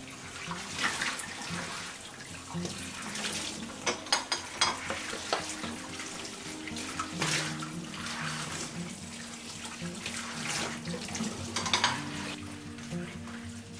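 Tap water running into a stainless steel sink while bowls are rinsed under the stream, with a few sharp clinks of crockery knocking together about four seconds in and near the end. Soft background music plays underneath.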